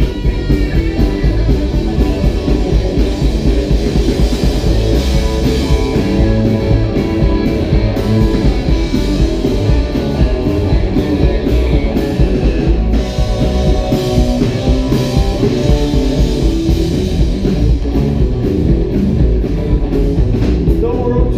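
Live rockabilly band playing loud: two electric guitars, electric bass and a drum kit keeping a steady, driving beat.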